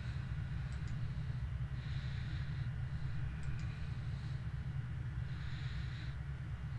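Steady low rumble of a running car heard from inside the cabin, with faint ticks and brief soft hisses repeating every couple of seconds.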